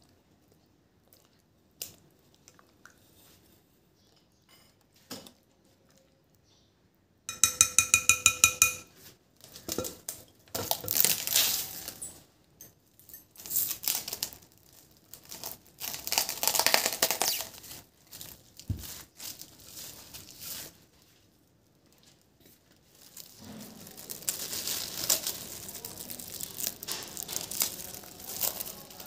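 Plastic cling film pulled off its roll in a quick, even run of buzzing pulses, then crinkling and tearing in repeated bursts as it is stretched and tucked over a glass mixing bowl. The first few seconds are nearly silent apart from a couple of faint clicks.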